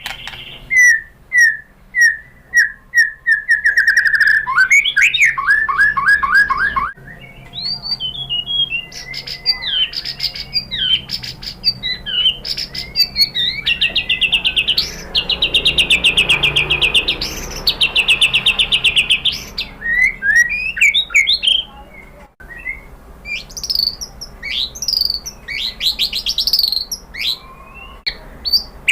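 White-rumped shama (murai batu) singing, the kind of lure song kept to set other shamas singing. It opens with a run of repeated clear whistled notes, then moves into varied gliding phrases and fast high trills in the middle. The song cuts off abruptly twice.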